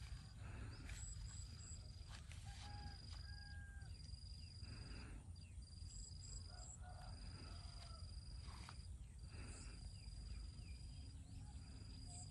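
Faint outdoor wildlife ambience: a high, steady trill that runs in long stretches with short breaks. Twice comes a quick high triple chirp, all over a low rumble.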